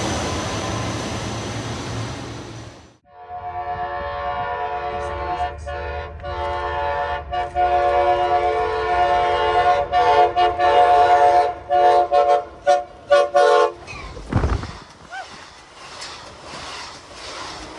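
A loud rushing rumble, cut off sharply about three seconds in. Then an Amtrak Pacific Surfiner locomotive's multi-chime air horn sounds a chord for about ten seconds: first a long blast, then a string of short, choppy blasts. A low thud follows, and it goes quieter.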